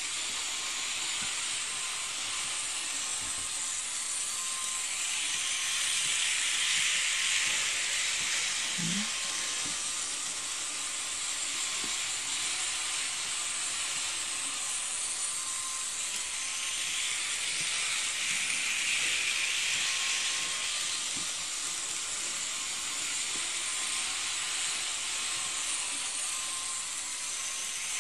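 Model railway train running on its track, a steady whirring hiss that swells twice, about twelve seconds apart, as the train comes close on its loop.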